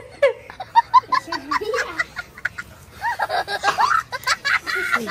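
People laughing and giggling in short, repeated bursts.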